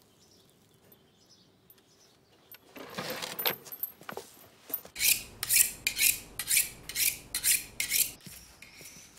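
Scraping, as of metal, in a quick run of about eight even strokes, roughly two and a half a second, after a single longer scrape a few seconds earlier.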